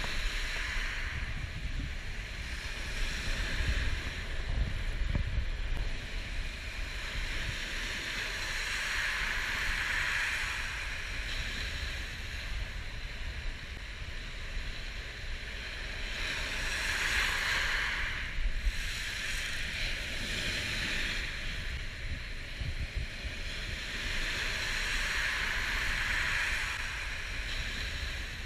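Small surf washing up and drawing back over a gravel beach, swelling about every eight seconds, with wind buffeting the microphone.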